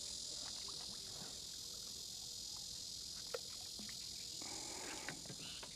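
A steady, high-pitched chorus of insects chirring, with a few faint ticks on top.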